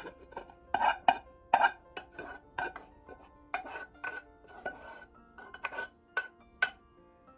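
Metal cutlery clinking and scraping against dishware, a dozen or so irregular knocks with a short ring, over soft background music.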